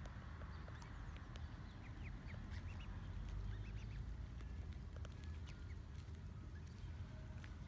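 Mute swan cygnets peeping: short, high chirps scattered through, over a steady low background rumble.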